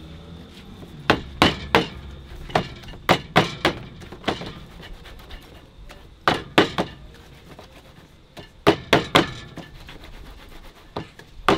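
Round metal baking pan full of sweet potato pudding batter knocked down on the counter again and again, in short runs of two or three sharp knocks, to settle the batter and drive out air pockets.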